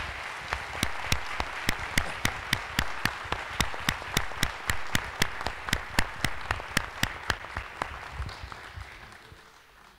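Large seated audience applauding in a hall, with one pair of hands clapping close by in a steady beat of about three and a half claps a second. The applause thins out and dies away near the end.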